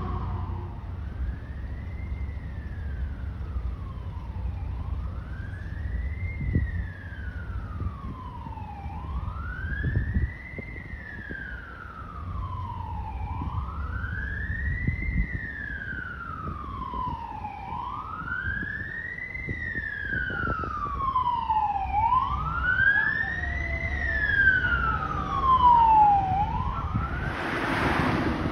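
Fire engine's electronic siren on wail, sweeping slowly up and down about once every four seconds and growing louder as the apparatus approaches, over a low rumble of traffic. A short rush of noise breaks in near the end.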